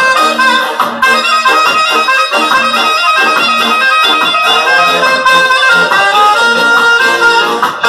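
Live ska band playing an instrumental passage: a reedy lead line of held notes over a pulsing rhythm section.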